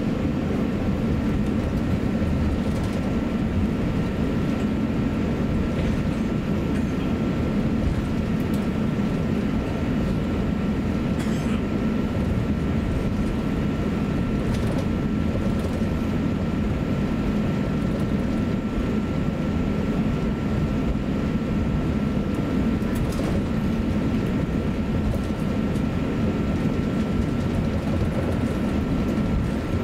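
Cabin noise inside an Airbus A350-900 taxiing: a steady low rumble from the engines at taxi power and the air conditioning, with a thin steady whine above it.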